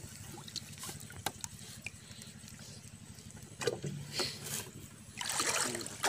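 A cast net with a weighted lead line being handled in shallow river water: faint water sounds with a few small clicks. About five seconds in comes a louder splashing rush of water.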